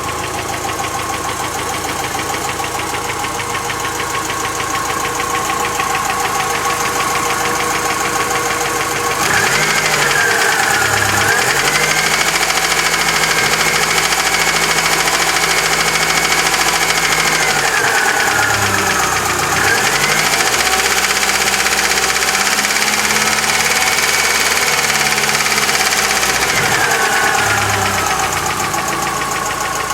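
Chery Amulet's four-cylinder petrol engine running with a knock in the cylinder head. It idles, then is twice raised to higher revs and held there for several seconds each time before dropping back to idle. The mechanic takes the knock for a faulty hydraulic lifter.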